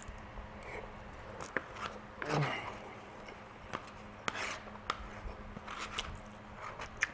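Metal spoon scraping and clicking against a rice bowl while a man chews, with a brief vocal sound about two and a half seconds in. The spoon is scraping up the last of the rice in the bowl.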